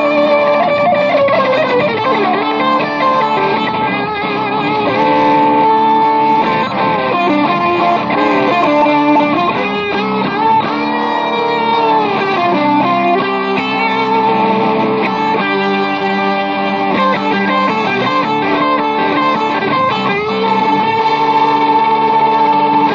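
Electric guitar playing a hard rock piece, with long held notes and notes that bend up and down in pitch.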